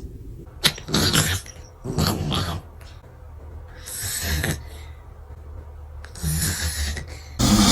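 A cat snoring: four short rasping breaths, about one to two seconds apart, then a sudden louder noise just before the end.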